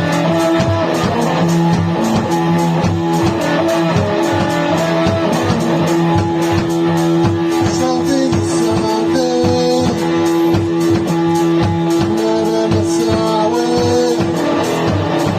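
A band rehearsing a krautrock-style psychedelic piece: electric guitar lines wandering over a held low drone, with a dense, steady run of percussive hits.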